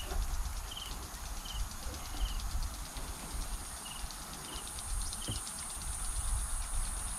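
Insects chirping outdoors: short repeated chirps about every half second to second, with a fast high ticking and a steady high buzz coming in about halfway, over a low wind rumble.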